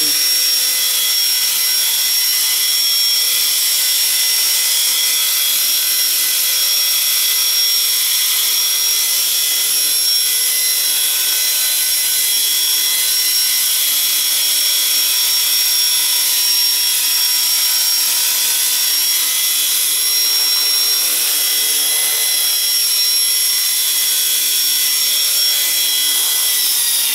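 Radio-controlled model helicopter running at steady speed: a constant high-pitched whine from its motor and spinning rotor, with the pitch starting to drop at the very end as it winds down.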